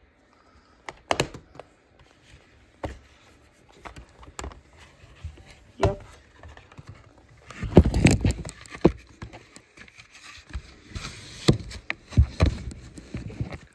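Handling of a plastic DVD case and disc: scattered sharp clicks of the case being snapped open and the disc pried off its hub, with a burst of rustling and scraping about halfway through.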